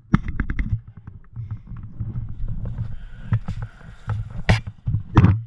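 Airsoft guns firing: a quick string of sharp snaps in the first second, scattered single shots after, and two louder shots near the end, over a steady low rumble.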